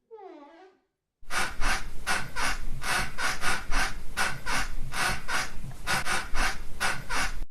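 Cartoon sound effect: a brief falling pitched whine, then, after a short pause, fast rhythmic panting, about four breaths a second.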